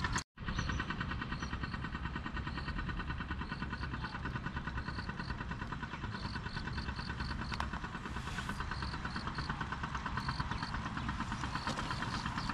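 Insects chirping in a steady, evenly pulsing chorus over a low rumble of distant traffic.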